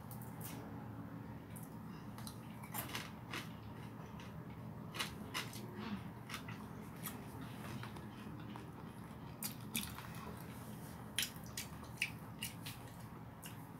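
Close-up eating sounds: a person chewing and smacking on mouthfuls of rice and fried chicken eaten by hand, with many short, irregular wet clicks.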